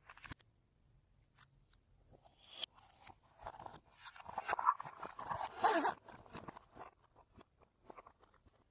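Fluffy slime being squished and stretched by hand: sticky crackling and popping that builds to a dense burst in the middle, then thins out to scattered clicks.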